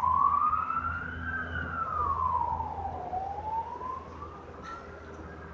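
Emergency vehicle siren wailing, its pitch slowly rising and falling with a swing about every two seconds, fading slightly near the end.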